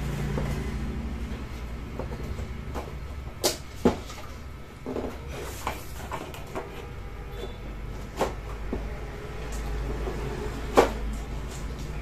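A large plastic optical sheet from an LED TV's backlight being lifted and flexed by hand: a few sharp clicks and knocks, the loudest near the end, with softer rustling between them over a low steady hum.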